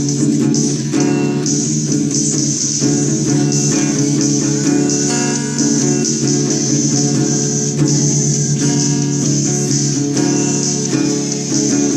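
Hard rock band music: an instrumental stretch of guitars over bass guitar, with no singing.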